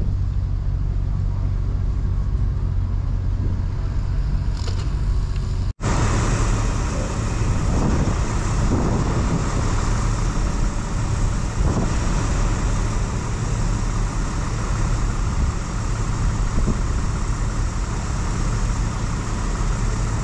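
A docked water ferry's engine idling with a steady low hum. About six seconds in, the sound cuts to a loud, steady rushing of wind and river water, with a low engine rumble underneath.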